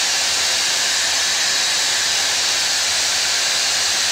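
Bosch PBS 75A belt sander, clamped upright in a wooden frame, running steadily with a constant whirring hiss.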